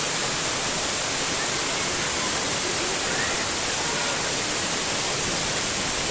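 Steady, even rush of water falling down a waterfall.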